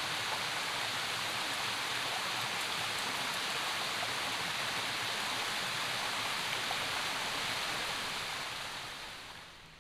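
Steady rush of a mountain stream's falling water, with no single splashes standing out; it fades out over the last two seconds.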